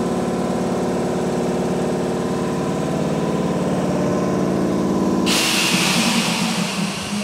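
A Tokyu 8500 series electric train standing at the platform: its underfloor equipment hums steadily. About five seconds in the hum stops and a loud hiss of compressed air is let off for about two seconds.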